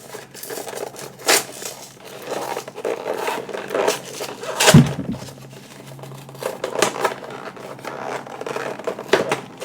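A sealed Pokémon card box's packaging being worked open by hand: irregular crinkling, tearing and scraping, with a loud knock about halfway through.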